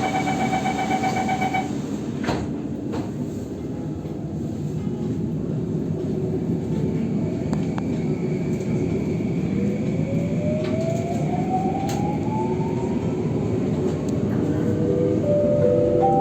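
Singapore driverless MRT metro train: a pulsing warning beep for the first couple of seconds, a knock about two seconds in, then a steady rumble as the train sets off, with the electric traction motors' whine rising in pitch from about halfway through as it accelerates.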